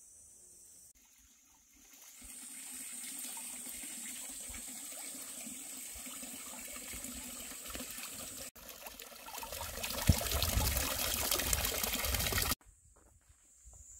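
Mountain spring water pouring from a spout and splashing into a round stone basin, a steady splashing that grows louder about two-thirds of the way through and cuts off suddenly near the end.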